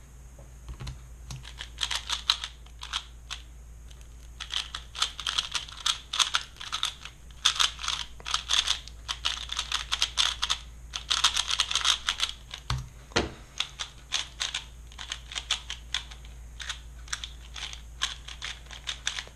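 Valk 3 stickerless speedcube being turned fast: runs of rapid plastic clicks and clacks as the layers snap round, in bursts of a second or two with short pauses between, and one dull knock about two thirds of the way through.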